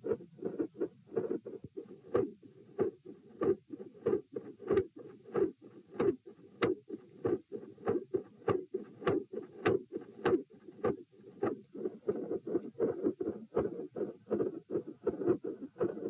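Human heart sounds heard on the chest over the pulmonic area: a regular, repeating lub-dub of short knocks. In this subject's recordings the second sound is described as having a fixed split, with extra sounds and clicks.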